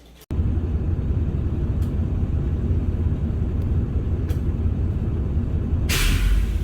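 Steady low rumble of a moving vehicle, with a brief loud hiss about six seconds in.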